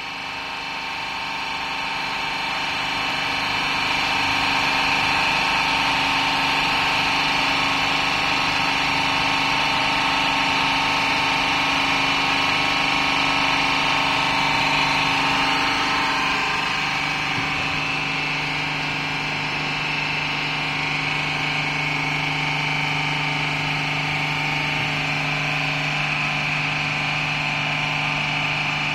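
Electric hydraulic pump running with a steady hum and whine, driving a single-acting hydraulic cylinder under a load test. It grows louder over the first few seconds, and its tone changes slightly about halfway through.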